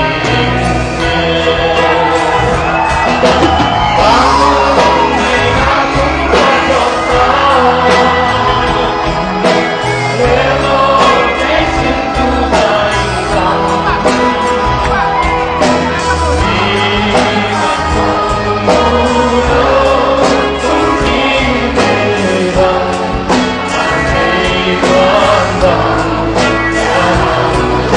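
A rock band playing live: electric guitars, bass and drum kit with a male singer, in a large hall.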